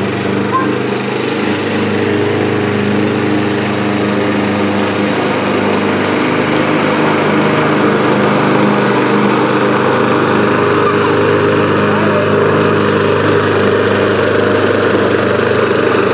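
Gas-powered walk-behind push mower's small engine running steadily as it is pushed through the grass, growing a little louder about halfway through.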